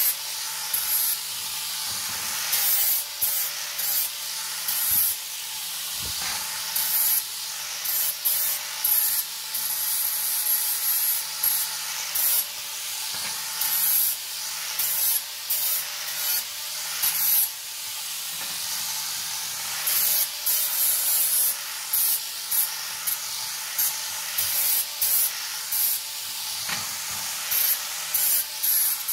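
Angle grinder with an abrasive disc grinding a thin galvanised steel sheet: a steady motor whine under a gritty hiss that swells and drops every second or so as the disc is pressed onto and lifted off the metal.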